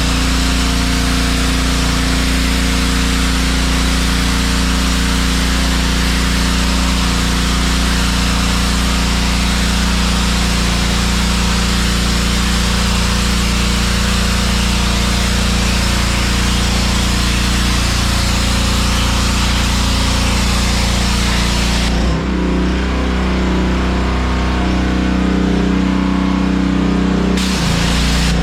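Honda gas-engine pressure washer running steadily under load, its high-pressure water jet hissing as it sprays the floor. About 22 seconds in, the spray eases off for about five seconds while the engine keeps running, then comes back full.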